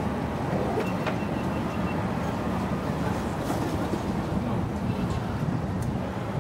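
Wind buffeting the microphone at the top of an open tower: a steady, rough low rumble.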